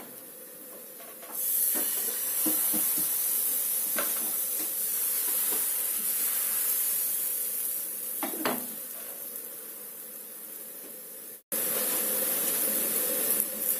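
Thin pancake batter sizzling in a hot oiled frying pan: a steady hiss that starts about a second in and slowly fades, with a couple of light knocks of a pan, and a brief dropout near the end.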